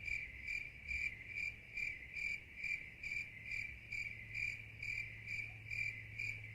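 A cricket chirping steadily, about two chirps a second, over a faint low hum. It starts and stops abruptly like a dropped-in crickets sound effect, the comic cue that nothing is happening.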